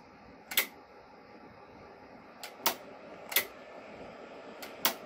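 Sharp relay clicks, four of them at uneven intervals, each with a faint lead click just before it, as the DX World e1200 HF amplifier is keyed in and out of transmit. A faint steady hiss lies under them.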